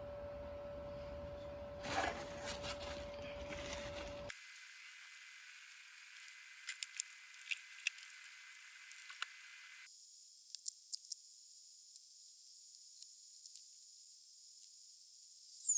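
Used engine oil draining from an open oil-pan drain hole into a catch container: a faint, even hissing trickle with scattered small ticks. A steady tone sits under it for the first four seconds or so.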